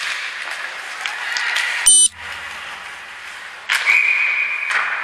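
Ice rink noise with stick and skate clicks, a short loud bang about two seconds in, then near the end a referee's whistle blowing one steady note for about a second, stopping play after a player goes down.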